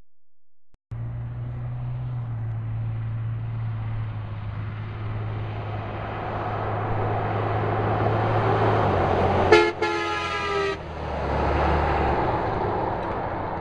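A 1999 Dodge Ram's 5.9-litre Cummins turbo-diesel, fitted with a muffler, approaches and drives past, growing louder and then dropping in pitch as it goes by. About two-thirds of the way in, its air horn sounds: a short toot, then a blast of about a second.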